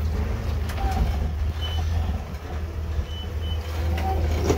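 Toyota FJ40 Land Cruiser's engine running with a steady low rumble as it crawls over rocks, with three short high-pitched beeps partway through.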